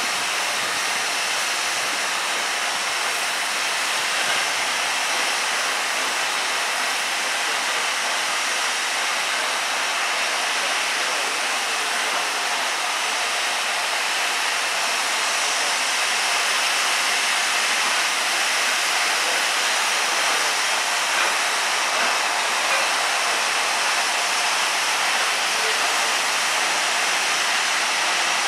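Steam locomotive blowing off through its safety valves: a steady, unbroken hiss of escaping steam, the sign of a boiler at full working pressure while the engine stands.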